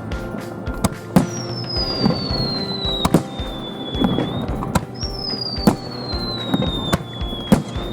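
Fireworks show: aerial shells bursting in repeated sharp bangs about every half second to second, with two long whistles that fall slowly in pitch, over background music.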